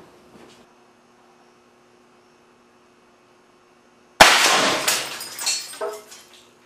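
A compressed-air cannon fires at about 300 psi: a sudden loud blast about four seconds in as the solenoid valve dumps the fire-extinguisher tank through the 1-inch barrel, then a rush of air dying away over about two seconds, with a couple of smaller knocks near the end.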